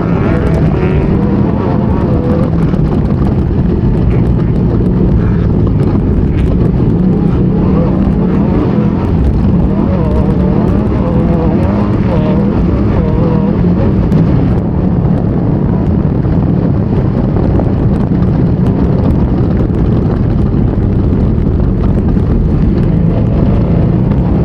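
Off-road race vehicle heard from onboard, its engine running hard and loud without a let-up, over steady driving noise.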